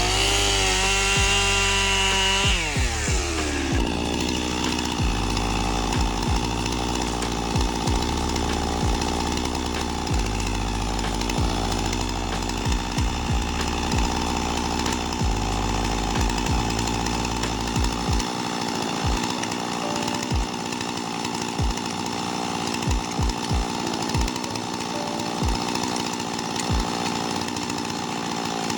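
Chainsaw revving up and dropping back over the first few seconds, then running steadily at high speed while cutting a large tree trunk.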